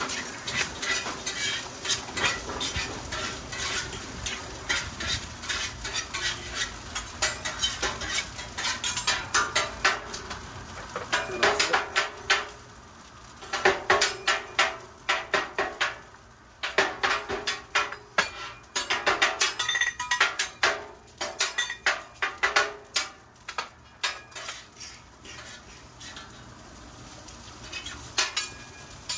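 Metal hibachi spatula and fork rapidly clacking and scraping on a steel griddle top as fried rice is chopped and mixed, over a steady sizzle of frying rice. The clatter pauses briefly about halfway through and thins out near the end.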